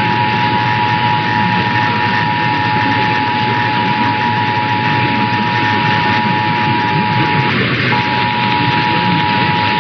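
Emergency Alert System attention signal: a steady tone just under 1 kHz held over a loud hiss of static with a low hum. It breaks off for about half a second near the end, then resumes.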